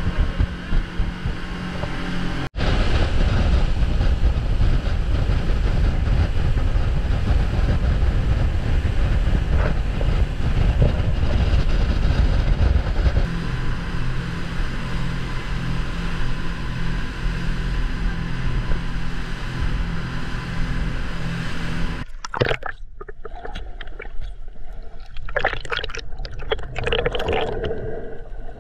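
Speedboat running fast across open water: a steady, loud rush of engine and water noise, broken by a brief dropout about two and a half seconds in. Near the end it gives way to muffled underwater sloshing and bubbling, heard through an action camera below the surface.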